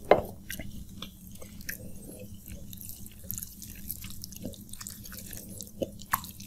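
Close-miked wet eating sounds: small wet clicks and squelches of fingers mashing potato bhorta into rice soaked in water, over chewing. A sharp louder click comes just after the start, and two more come near the end.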